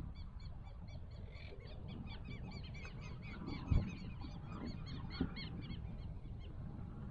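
A flock of birds calling: many short, repeated calls in quick overlapping succession, over a low steady rumble. A single dull thump sounds a little past halfway, with a softer one about a second later.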